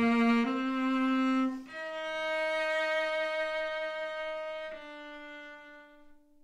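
Cello played with a bow: a slow line of long held notes stepping up in pitch, then a last note that fades away near the end.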